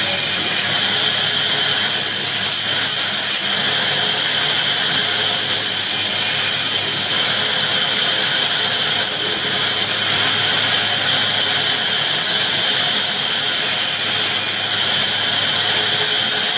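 Sawmill band saw cutting lengthwise through a wooden slab: a loud, steady hiss of the blade in the wood over a low, even motor hum.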